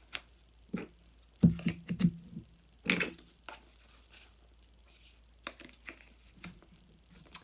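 Clips being snapped onto a Microfleur microwave flower press: a string of separate clicks and knocks, the loudest about one and a half and three seconds in.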